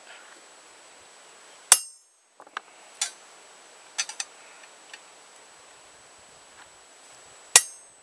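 Hammer striking a chisel on metal plate in two single hard blows about six seconds apart, each with a bright metallic ring, as a knife blade is cut out by hand. Lighter clinks follow the first blow as the chisel is reset on the cut line.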